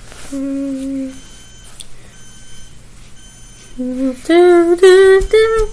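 Fire alarm beeping faintly over and over, about one short high beep every 0.7 s. A child's voice hums a low held note for about a second near the start and sings several loud held notes near the end.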